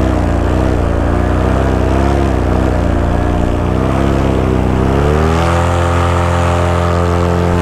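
Paramotor engine and propeller running, its pitch wavering up and down, then rising about five seconds in as the throttle is opened and holding steady at the higher speed.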